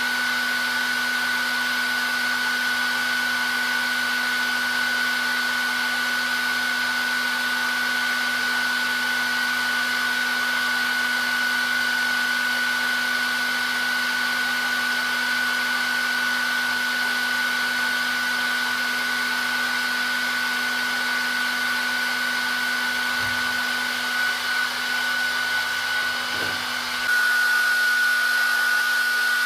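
Hair dryer blowing steadily: an even rush of air with a steady high whine from its motor and fan. About three seconds before the end the sound shifts abruptly and runs a little louder.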